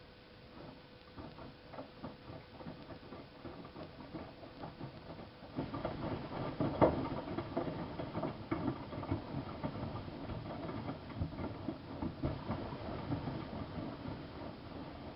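Miele Softtronic W3657 front-loading washing machine in its wash phase, the drum turning the wet load: irregular soft knocks and clicks of laundry tumbling, which grow busier about five and a half seconds in.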